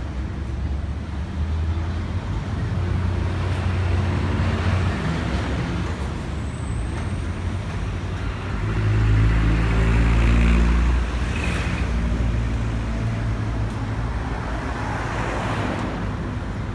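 Road traffic: motor vehicle engines running and vehicles passing, with a louder engine rumble from about nine to eleven seconds in.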